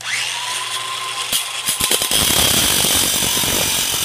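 DeWalt 18V cordless angle grinder starting up with a brief rising whine, then its disc catching on and cutting through the golf cart A-arm's steel shock mount, chattering at first and then grinding steadily and loudly.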